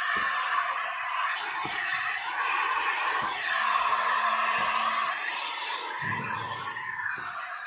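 Handheld electric heat gun blowing hot air onto window tint film on glass, heat-shrinking and setting the film's edges. Its fan makes a steady airy rush that shifts a little in pitch, with a few faint low knocks.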